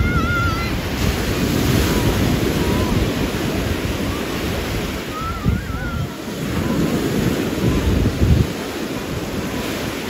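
Small waves breaking and washing on a sandy beach, with wind gusting on the microphone in uneven low rumbles. A few faint voices from the beach crowd come through near the start and about five seconds in.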